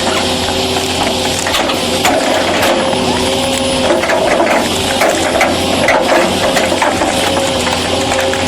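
A heavy forestry machine's engine running at a steady pitch, with repeated sharp cracks and crunches of wood being broken.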